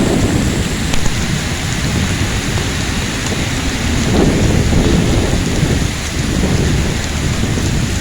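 Heavy rain hissing steadily, with low rumbling swells rising and falling a few times underneath.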